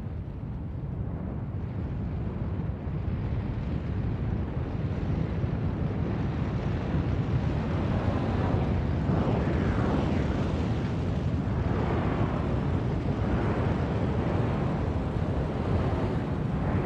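Steady, deep rushing noise of a burning oil-well fire, its flames jetting from the wellhead. It swells gradually over the first half and then holds.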